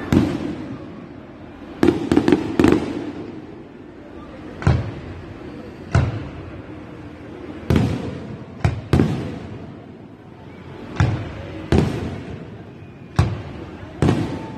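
Aerial fireworks shells bursting: about a dozen sharp bangs at irregular intervals, with a quick cluster of three or four about two seconds in, each followed by a fading echo.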